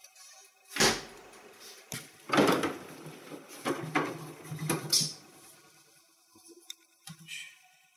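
Food and containers being handled inside an open refrigerator: a string of rustles, knocks and clatters from bags, dishes and shelves, the loudest about a second in and again around two and a half seconds.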